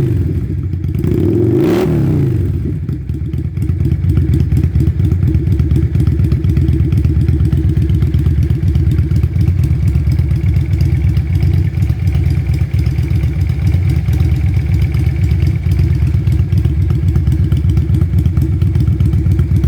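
Yamaha Virago V-twin motorcycle engine, running on a single carburettor, blipped twice (the first blip dying away at the start, the second about two seconds in), then settling into a steady idle with an even, pulsing beat.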